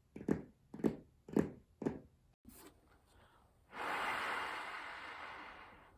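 Foley sound effects: a run of soft, evenly spaced thuds about two a second, like footsteps, stopping about two seconds in; then, nearly a second and a half later, a loud hissing rush starts abruptly and fades away over about two seconds.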